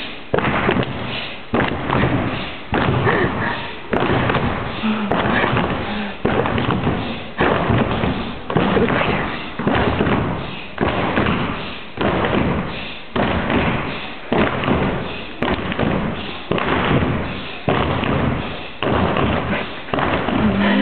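A steady thumping beat, about one thump a second, each ringing out in a large echoing sports hall, with voices underneath.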